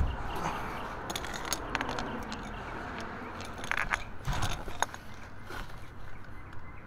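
A sharp knock, then scattered metallic clinks and rattles of hand tools being handled at the oil drain plug and drain pan, in no regular rhythm.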